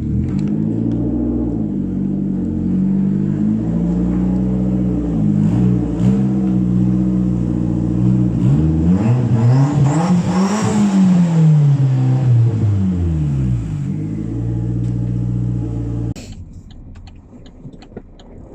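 Turbocharged Toyota Starlet EP82 engine revving under acceleration, its pitch climbing and dropping repeatedly as it is driven, with one long rise and fall about two thirds of the way through. It cuts off abruptly near the end.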